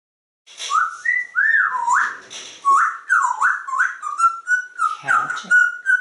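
Whistling: a tune of quick swooping notes that slide up and down in pitch, starting about half a second in.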